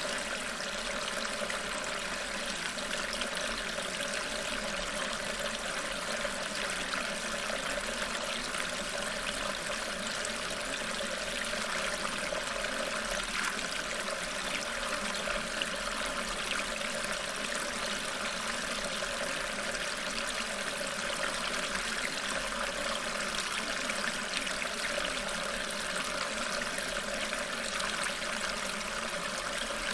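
Steady running water with no breaks, the masking sound track of a subliminal-affirmation recording.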